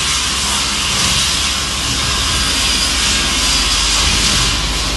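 TradeMak PIRANHA 412 single-shaft multi-blade circular rip saw running, a steady, unchanging machine noise with a low hum beneath.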